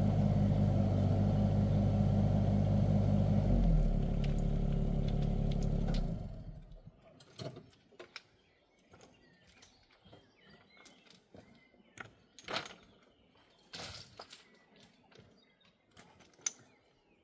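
Mini excavator's diesel engine running, dropping in pitch about three and a half seconds in and shutting off about six seconds in. After that, scattered sharp clacks and knocks of loose stones being handled.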